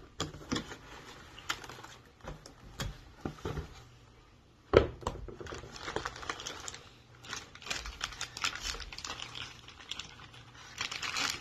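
Handling of a cardboard shipping box and its inserts: scattered taps, scrapes and clicks, with one sharp knock about five seconds in. Plastic wrapping crinkles toward the end as a wrapped shotgun part is lifted out.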